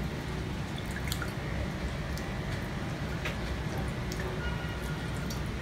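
Lime juice dripping from a hand-held metal lever citrus press into a jug of ice, with a few light clicks of the press, over a steady low background hum.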